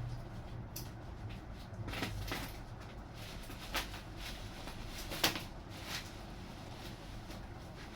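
Scattered light knocks and clicks, about six in all, the loudest a little past five seconds in: model parts and packaging being handled.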